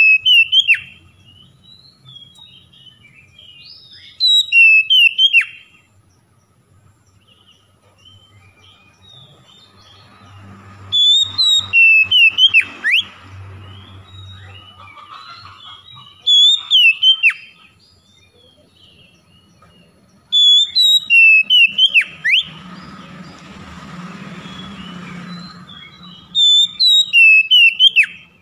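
Oriental magpie-robin (kacer) singing loud phrases of clear whistled notes with sharp downward sweeps. There are about six short bursts, one every four to six seconds.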